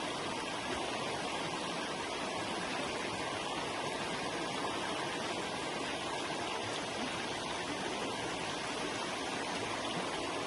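Forest river flowing, a steady rush of water.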